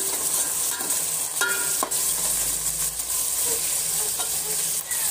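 Sliced onions frying in hot oil in a metal pot: a steady sizzle, with a spoon stirring and scraping against the pot, giving a few brief metallic clinks about a second and a half in.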